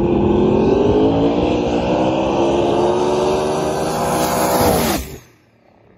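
Drag-race car engine at full throttle, its pitch climbing slowly and steadily, then dropping briefly before the sound cuts off abruptly about five seconds in.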